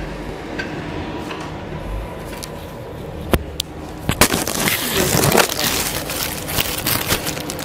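A few sharp clicks and knocks, then from about halfway through a dense crackling, rustling handling noise that carries on.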